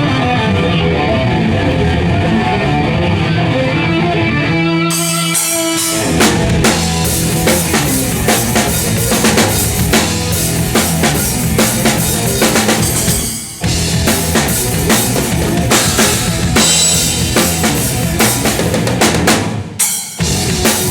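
Live heavy metal band playing, with the drum kit close and loud in the mix: kick and snare with the band at first, then cymbals come in about five seconds in and the full kit drives fast rhythms. There are brief breaks around the middle and near the end.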